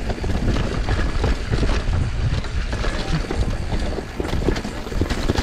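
Mountain bike riding down a dirt trail: tyres rumbling over the ground and the bike rattling with many small knocks, with wind on the microphone.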